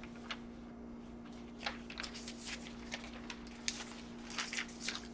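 Sheets of paper rustling and crinkling as they are leafed through, in short scattered rustles from about a second and a half in, over a faint steady hum.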